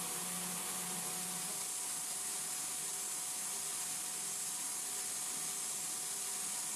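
CNC milling machine's end mill cutting a metal workpiece, heard as a steady hiss with a faint steady tone. A low hum drops away about a second and a half in.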